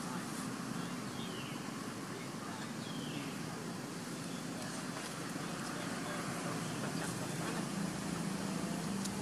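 Steady outdoor background hum like distant traffic, with a few faint high calls about half a second in and again about three seconds in.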